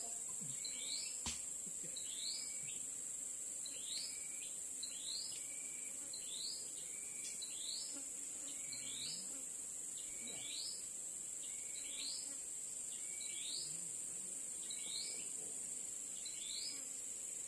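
Steady high-pitched insect drone with a short rising chirp repeated roughly once a second, and a single faint knock about a second in.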